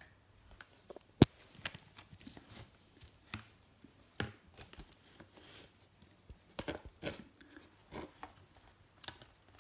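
Handling noise of a hockey goalie mask as its back plate and straps are taken off: scattered clicks, knocks and rustles, the sharpest click about a second in.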